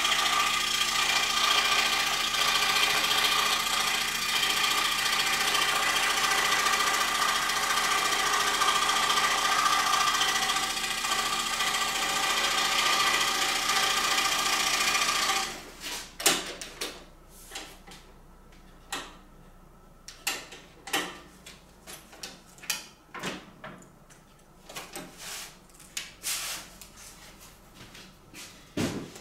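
Excalibur scroll saw running steadily as a marquetry veneer packet is fed through its blade, then switched off about halfway through. After it stops there are scattered light taps and clicks as veneer pieces are handled.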